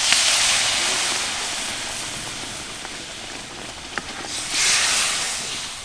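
Fish head and spice paste in hot oil in a wok, sizzling and hissing after a little water is added. The hiss dies away, then flares up again briefly about four and a half seconds in.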